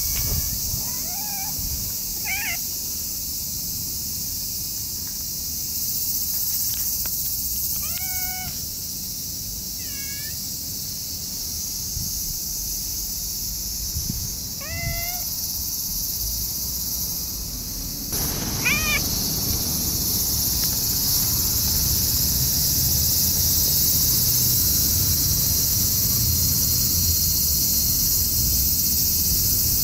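Tabby cat meowing: about half a dozen short, high meows a few seconds apart, over a steady high hiss.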